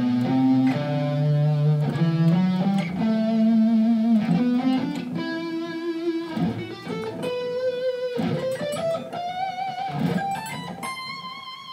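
Fender Stratocaster electric guitar playing a G major four-notes-per-string scale passage slowly with strict alternate picking, the notes climbing steadily higher with a few pinky slides for the position shifts. It ends on a held high note with vibrato.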